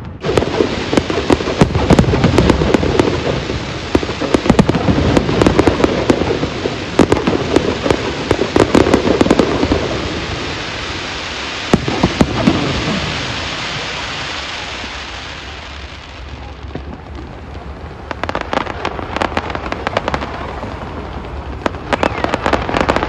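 Fireworks display: dense, rapid bangs and crackling for the first half, one more bang about halfway, then a quieter fizzing crackle, and crackling bursts again near the end.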